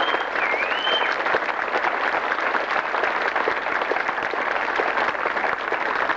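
Crowd applauding, a dense even clapping, with a whistle gliding down and up about half a second in.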